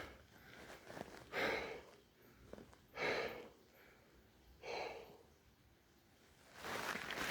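Three slow, heavy breaths of a person, close to the microphone, a little over a second and a half apart. A louder rustling noise starts near the end.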